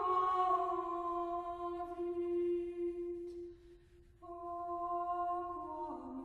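Slow background music of long held notes that step gently from pitch to pitch, dropping away for about half a second a little past the middle.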